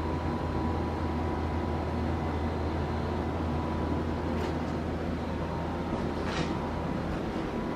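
A steady low mechanical hum with a faint thin high tone above it, and two soft clicks in the second half.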